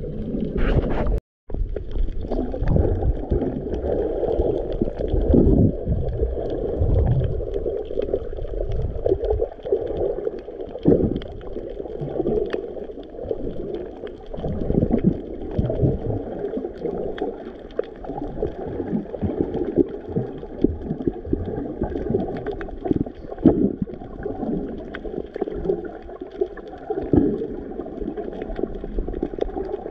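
Muffled underwater sound picked up by a GoPro camera while snorkelling: water gurgling and sloshing around the camera, with scattered small knocks and clicks. The sound cuts out for a moment about a second in.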